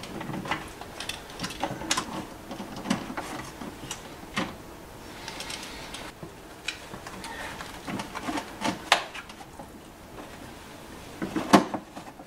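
Scattered clicks and knocks of an 8 mm driver and gloved hands working out the two screws of a snowblower's bottom cover. A louder cluster of knocks near the end as the cover is worked loose.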